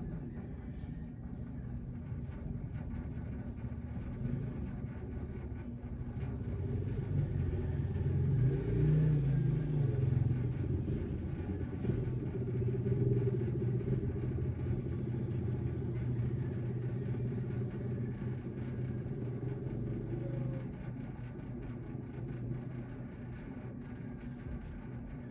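Low, steady rumble of a motor vehicle's engine, growing louder a few seconds in and easing off again near the end.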